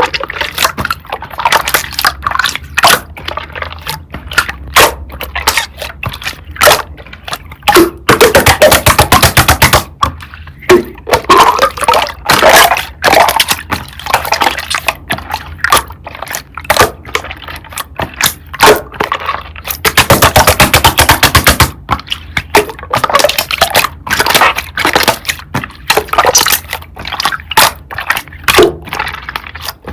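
Slime being squished and pressed by hand, full of sharp popping clicks as trapped air bursts, with two long runs of rapid crackling pops about eight and twenty seconds in.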